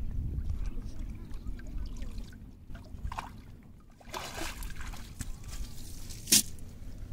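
A wet cast net being lifted out of shallow river water, with water splashing and streaming off the mesh about four seconds in. A single sharp knock follows near the end.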